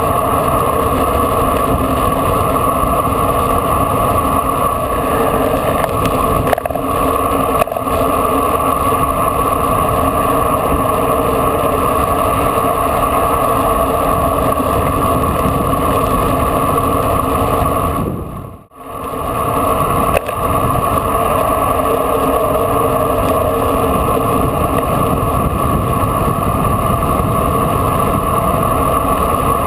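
Steady rush of wind on the microphone of a bike-mounted camera during a fast bicycle descent. The noise dips sharply and briefly about two-thirds of the way through, then resumes.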